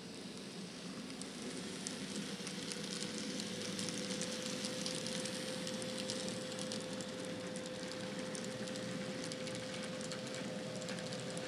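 N scale model diesel locomotives on Kato C30-7 chassis running past, their motors giving a steady whine, with a dense fine clicking and rattle of the wheels and freight cars on the track. It grows louder over the first few seconds as the train comes closer.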